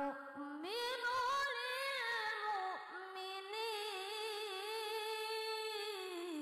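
A young boy reciting the Quran in the melodic tilawah style through a microphone, drawing out one long ornamented phrase whose pitch wavers and climbs about a second in, breaking off near the end.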